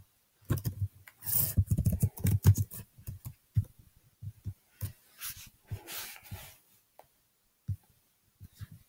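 Computer keyboard typing and clicks, many short sharp taps in quick runs, densest in the first few seconds, with brief scratchy rubbing sounds in between.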